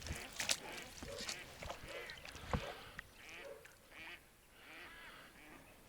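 Ducks quacking in short, scattered calls, with a few sharp knocks, the loudest about two and a half seconds in.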